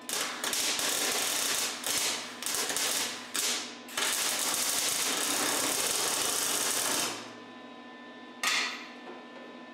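MIG welder arc crackling as holes in the steel body of a 1943 Willys MB are welded shut. It comes as a run of short bursts, then one longer bead of about three seconds, and a last brief burst near the end.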